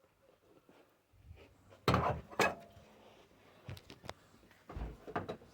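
A few knocks and clacks of objects being handled, the two loudest about two seconds in, then lighter clicks and a low thump near the end.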